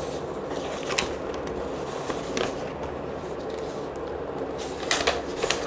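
Notebook pages being handled: a few light clicks and rustles, busiest near the end, over a steady low room hum.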